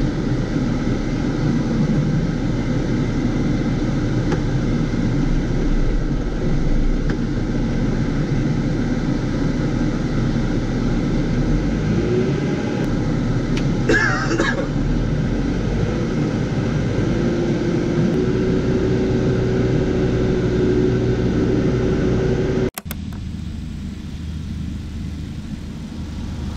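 John Deere tractor's diesel engine running, heard from inside the cab as a steady low rumble with an engine hum that rises slightly in pitch about halfway through. Near the end the rumble cuts off suddenly and gives way to a quieter steady noise.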